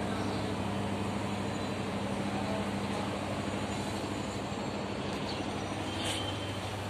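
Steady low engine drone aboard a passenger river launch, an even hum that holds without change.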